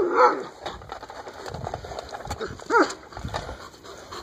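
Alaskan malamute giving one short vocal call about three seconds in, with its paws crunching on gravel as it walks.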